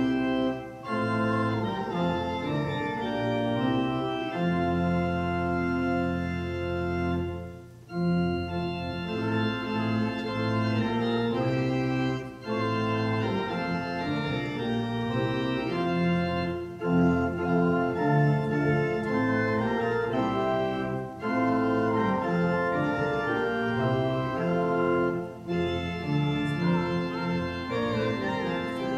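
Church organ playing a hymn tune in sustained chords, phrase by phrase, with brief breaths between phrases.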